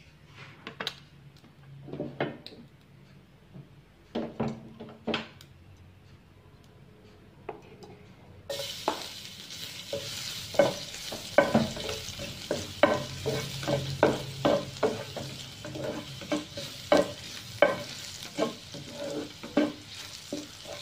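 A few light knocks of handling at the pan, then about eight seconds in chopped garlic hits hot oil and starts sizzling suddenly. It keeps frying with a steady sizzle while a spatula stirs and scrapes against the pan.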